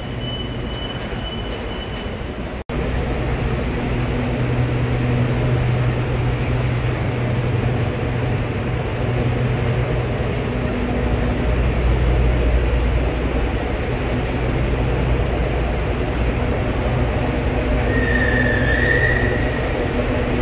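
Electric high-speed intercity train in an underground station, running with a steady low electric hum made of several held tones that swells deeper around the middle. A steady high beep sounds for the first couple of seconds, and a short squeal that rises and falls comes near the end.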